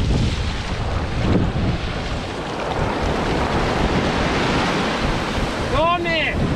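Surf breaking and washing up the sand, with wind buffeting the microphone. A person gives a short call near the end.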